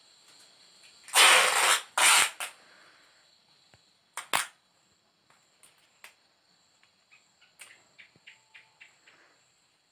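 Insulation tape pulled off its roll: two loud rasping rips about a second in, then two short rips a couple of seconds later, with a few faint ticks near the end.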